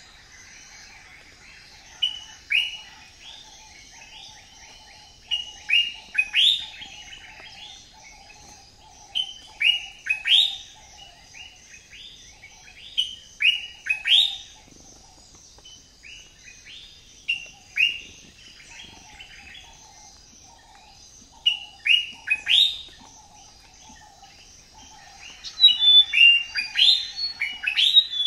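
Birds chirping: short downward-sweeping chirps in clusters every second or two over a steady high background trill, getting busier and louder near the end.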